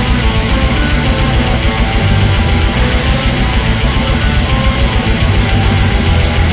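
Black metal music: distorted electric guitars over dense, fast drumming.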